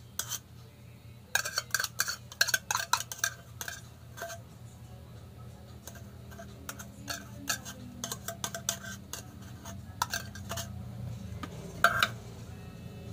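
Metal spoon clinking and scraping against a small can while scooping thick cream out of it, in quick runs of clicks with pauses between. The loudest clink comes near the end.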